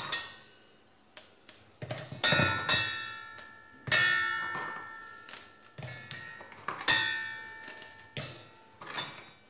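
Pieces of Oreo biscuit dropped by hand into an empty stainless-steel mixer-grinder jar. Each drop lands with a metallic clang that rings for about a second, about five times, with small clicks of biscuits being broken and handled between.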